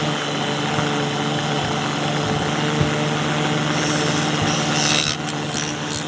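Electric motor of a woodworking machine running steadily with a continuous hum. A higher hiss joins about four seconds in and breaks up a few times near the end.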